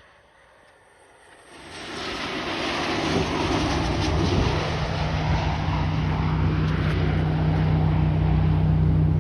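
Airplane engines rising in about a second and a half in, then a loud, steady drone with a low hum.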